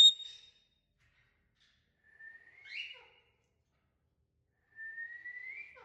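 Parrot whistling: a loud, clear high note right at the start, then two quieter rising whistles about two and a half seconds apart.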